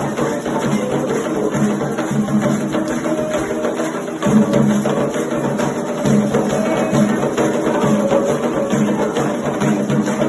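Candomblé ritual music for Xangô: hand drums and a sharp struck-percussion rhythm, over steady pitched voices or instruments, a little louder from about four seconds in.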